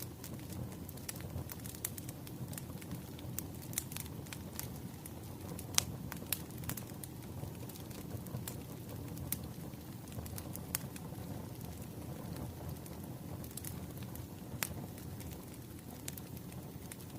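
Wood fire crackling: irregular sharp pops and snaps over a steady low rumble of burning logs.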